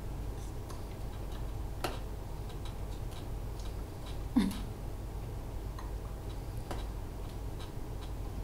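Quiet room with a steady low hum and a run of faint clicks and taps, roughly one every half second or so, and one louder thump about four and a half seconds in.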